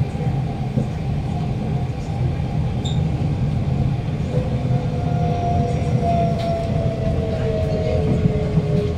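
Interior running noise of a KSF C151B metro train: a steady low rumble of wheels on rail. From about halfway through, a motor whine joins it and falls slowly in pitch as the train slows.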